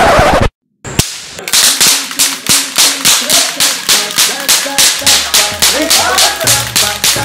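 Toy cap guns firing in a fast, even string of sharp cracks, about three or four a second, after one loud shot and a brief dead silence at the start. Music with a bass line comes in under the shots in the second half.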